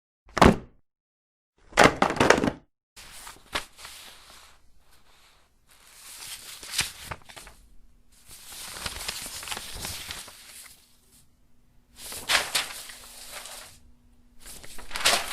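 Sheets of paper being handled: two short sharp rustles in the first couple of seconds, then several longer stretches of crackling, crinkling paper, typical of paper being crumpled or torn, with brief pauses between them.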